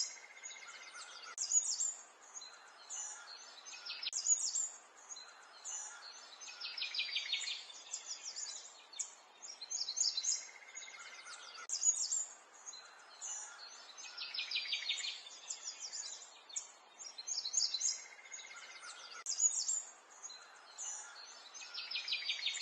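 Small birds chirping and trilling over a soft background hiss. The same stretch of birdsong repeats about every eight seconds, like a looped recording.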